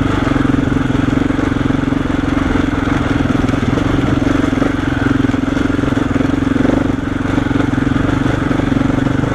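KTM 690 Enduro's single-cylinder engine running steadily at low, even revs while the motorcycle creeps along a rough dirt trail.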